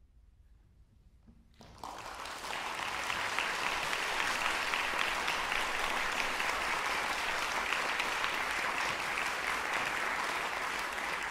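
Audience applause: after a second or two of near silence it breaks out suddenly, builds over about a second, then holds steady.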